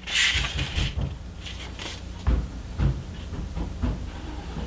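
Handling noise from PC parts and cables being moved by hand: a brief rustle at the start, then a few dull knocks.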